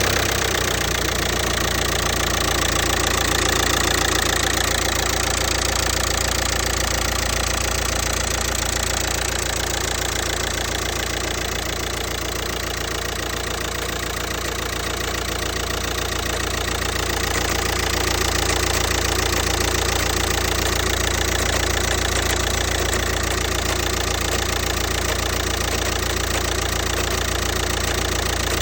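Audi A3 8P's 2.0 TDI (BMM) four-cylinder pump-injector diesel idling steadily with a rapid knocking in its running, a noise whose cause the owner is trying to find.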